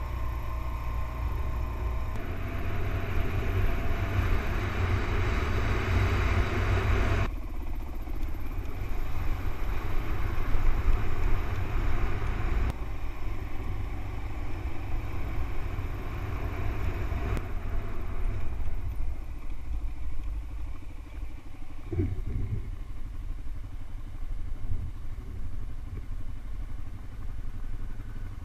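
Motorcycle running along a dirt road, its engine heard under a steady rush of riding wind on the camera's microphone. The sound changes abruptly a few times where the footage cuts.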